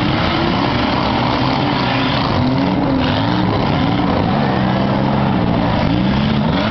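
Several six-cylinder demolition derby car engines revving up and down at once over a loud, steady din, their pitches rising and falling against each other.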